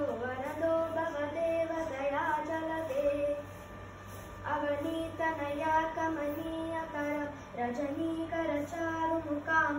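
A child's voice singing a devotional hymn from a printed text, holding notes that step up and down in a simple melody. There is a short pause a few seconds in before the singing resumes.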